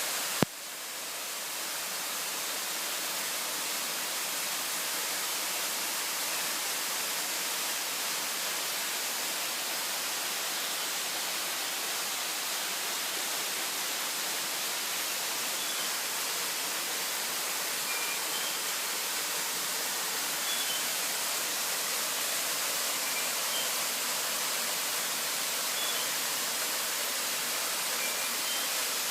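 Waterfall rushing in a steady, even hiss of falling water. A sharp click sounds about half a second in, and a few faint short high peeps come in the second half.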